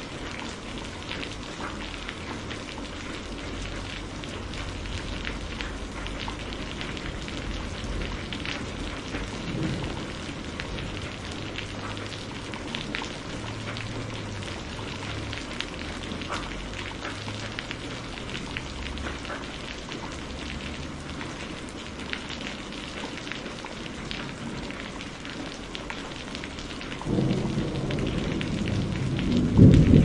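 Steady heavy rain pattering on palm fronds and foliage, with scattered close drop ticks. Near the end a roll of thunder comes in and swells, loudest just at the end.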